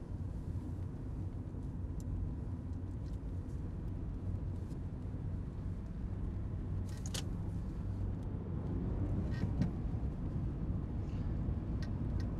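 Car cabin noise while driving: a steady low engine and road rumble that grows a little louder near the end, with a few faint clicks.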